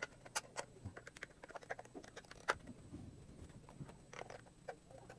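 Small screwdriver turning the screw of the plastic battery cover on the back of a handheld ESR meter: faint, irregular ticks and scratches of the metal tip in the screw head and fingers on the plastic case, the sharpest click about two and a half seconds in.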